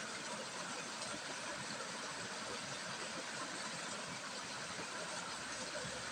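Steady, faint hiss of a small stream's running water, even throughout with no distinct events.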